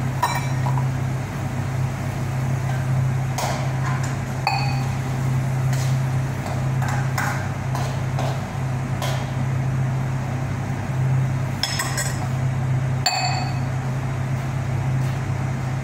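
Metal cookware and utensils clinking and knocking at irregular moments, a few of the strikes ringing briefly like a struck pot, over a steady low hum.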